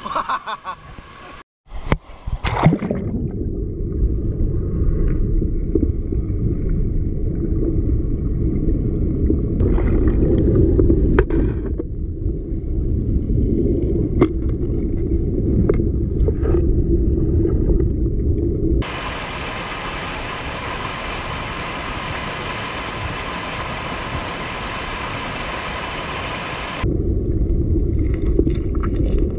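River water, heard as a loud, muffled low rush with scattered clicks and knocks. From a little past the middle it switches for about eight seconds to a brighter, steady hiss of water, then the muffled rush returns.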